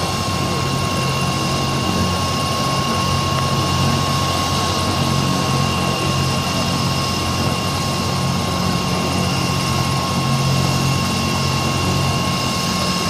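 AgustaWestland AW109 twin-turbine helicopter running on the ground with its rotor turning: a steady high turbine whine over a low rotor drone.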